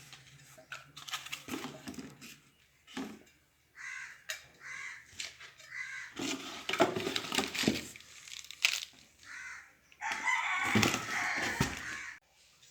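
Chickens calling: a run of short repeated calls, then a longer, louder call of about two seconds near the end.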